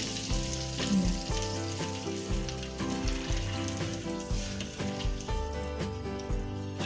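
Hot oil sizzling in a wok as egg mixture is ladled in and stirred to fry an omelette, under background music.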